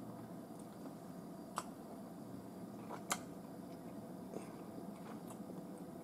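Faint chewing of food in the mouth, with a few soft mouth clicks about one and a half, three and four and a half seconds in, over a low room hum.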